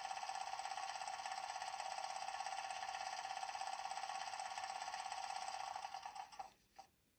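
Electric-locomotive start-up sound played by an ESU LokSound 5 decoder through the small speaker of a Piko H0 BR 143 model: a steady, fast-pulsing rattling buzz that dies away about six and a half seconds in, with one short blip just after.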